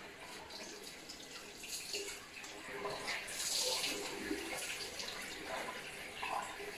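Water running steadily in a small bathroom, a continuous hiss that grows louder a little past three seconds in.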